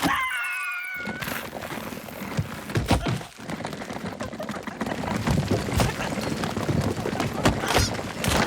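Cartoon sound effects: a short, wavering high-pitched cry in the first second, then a busy run of noisy effects broken by several sharp knocks.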